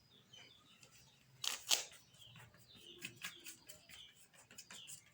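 A few sharp clicks and rattles of feed being mixed by hand, the loudest pair about a second and a half in, with young chickens peeping faintly in the background.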